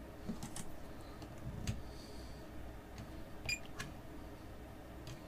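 A few small plastic clicks and taps from test-lead probes being handled and a multimeter's rotary selector dial being turned, over a low steady hum. The sharpest click comes about three and a half seconds in.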